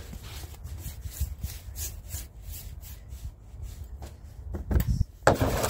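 A stain applicator on a long pole scrubbed back and forth over wooden decking boards, in quick repeated strokes of about two or three a second. It gets louder near the end, with one stronger scrape.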